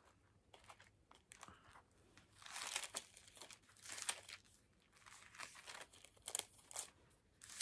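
Thin Bible pages being leafed through: a string of soft, irregular paper rustles and crinkles.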